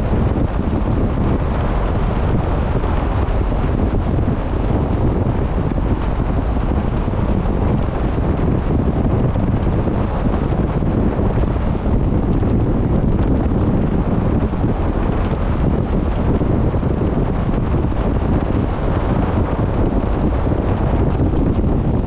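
Wind buffeting the microphone in a steady low rumble, over the rush of open sea from a moving boat.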